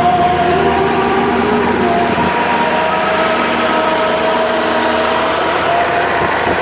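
Street traffic with a siren wailing over it, its drawn-out tone wavering above a steady rush of engine and road noise.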